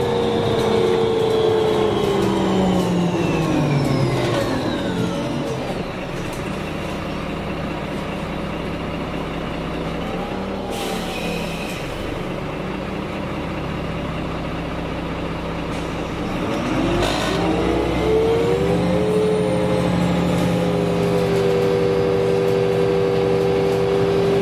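Karosa B951E city bus with a Voith automatic gearbox, heard from on board. The engine note falls with a dropping whine as the bus slows, settles low for about ten seconds with a short hiss near the middle, then rises as it pulls away about two-thirds of the way in and holds steady.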